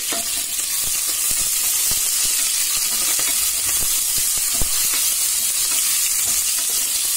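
Freshly added sliced onions and green chillies sizzling in hot oil and ghee in a pressure cooker pot, stirred with a wooden spatula. The spatula knocks against the pot now and then, with one sharper knock a little past halfway.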